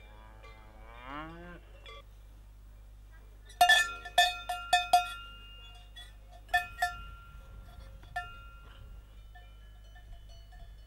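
Cowbells on grazing cattle clanking in irregular clusters of ringing strikes, loudest about three and a half to five seconds in, with more near six and a half and eight seconds. A cow lows near the start.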